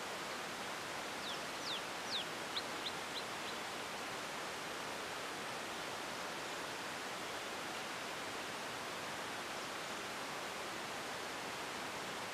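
Steady outdoor hiss, with a bird calling a quick run of high notes about a second in: the first few sweep downward, the rest are short and fade away.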